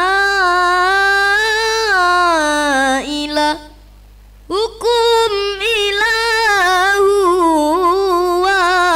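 A boy reciting the Qur'an in the melodic qira'ah style into a microphone, drawing out long, ornamented held notes. He breaks off for a breath about three and a half seconds in, then starts a second long phrase.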